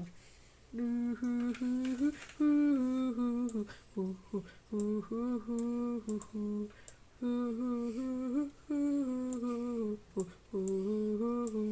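A person humming a wordless tune in short phrases of held notes that step up and down, with brief pauses between phrases.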